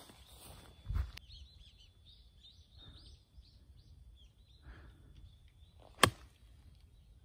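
A 60° wedge striking a golf ball: one sharp, short click about six seconds in, over birds chirping. A low thump comes about a second in.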